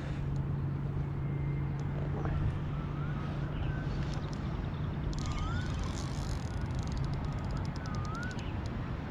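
Open-air river background with a steady low hum, over which short rising whistled bird calls repeat every two seconds or so. Near the end comes a rapid run of fine ticks lasting about a second and a half.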